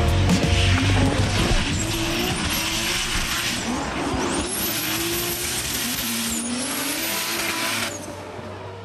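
Drift cars sliding in tandem, a Nissan Silvia S15 among them: engines revving high and dipping again and again over the hiss of spinning, smoking rear tyres. The sound drops away suddenly near the end.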